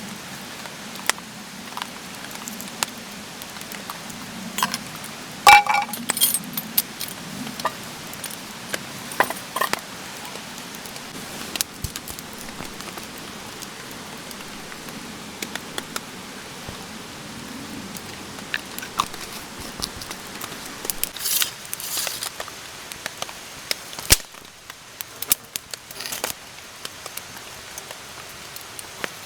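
Steady rain falling, with scattered sharp clicks and metallic clinks from camp gear being handled, loudest about five seconds in and again around twenty-one seconds.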